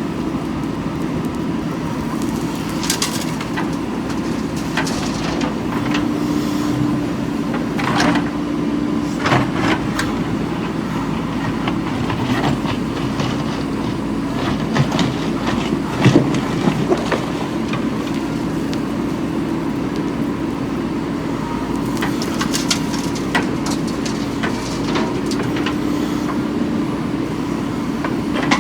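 JCB 3DX backhoe loader's diesel engine running steadily under work, with scattered knocks and clanks, the loudest about 16 seconds in.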